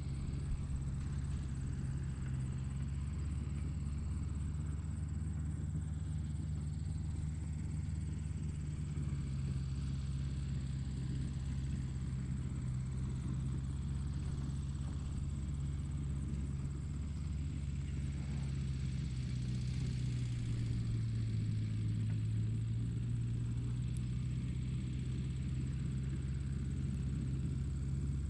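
Tractor engine running steadily with a low, even drone. Its note dips slightly for a few seconds about two-thirds of the way through, then settles back.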